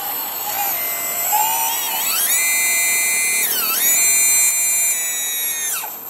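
Electric drive motors and gearboxes of a radio-controlled model Hitachi excavator whining as the machine turns on its tracks. The high whine rises about two seconds in, holds steady, dips briefly and climbs back, then winds down just before the end.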